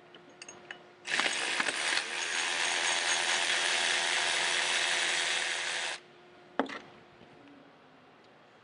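Cordless ratchet running for about five seconds as it spins off the turbocharger-to-exhaust nuts, followed by a single sharp click.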